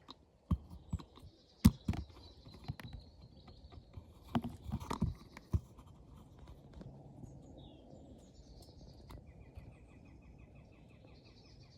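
Footsteps and rustling through vegetation, with several sharp knocks and brushes in the first half. Wild birds sing in the background, and a rapid high trill runs over the last two or three seconds.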